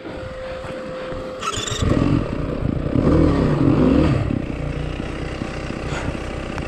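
Dirt bike engine picking up about two seconds in, revved up and down for a couple of seconds, then running more steadily at lower revs.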